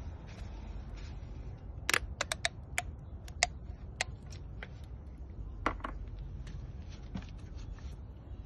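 Screw cap twisted off a plastic motor-oil bottle: a quick run of sharp plastic clicks about two seconds in, then a few more clicks and taps as the bottle is handled, over a low steady hum.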